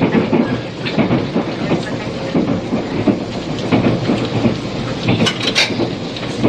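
Running noise heard inside a 485-series electric multiple unit at speed: a steady rumble with the wheels clicking over rail joints again and again. The whole sound carries the hiss of an old cassette tape recording.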